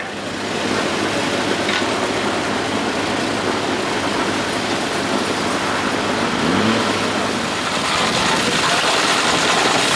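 Busy construction-site and street noise: engines running steadily, from traffic and site machinery such as a small excavator, in a dense wash of sound.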